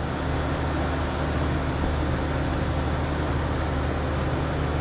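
Blowtorch-fired drum forge running: a steady rushing hiss over a low hum, with no strikes or knocks.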